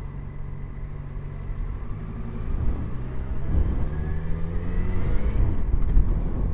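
Motorcycle engine running at low revs, then revving higher as the bike accelerates from about two and a half seconds in, with a rising engine note.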